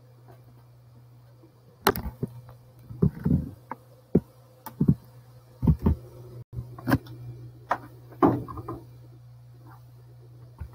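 Irregular knocks and clicks, about a dozen, clustered through the middle of the stretch, over a steady low hum.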